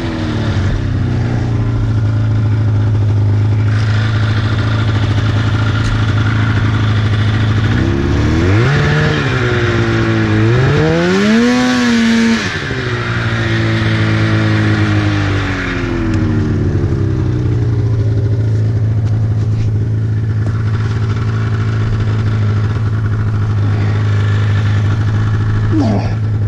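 2004 Polaris RMK 800 snowmobile's two-stroke engine running at a steady idle, blipped up twice in the middle, the second rev higher and longer, before settling back to idle.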